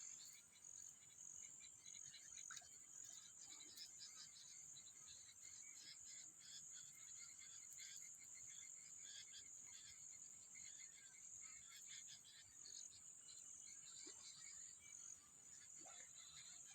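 Faint insect chorus: a steady high-pitched buzz with rapid, dense chirping.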